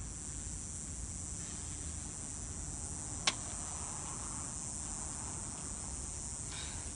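Insects outdoors, a steady high-pitched buzzing chorus, with a single sharp click about three seconds in.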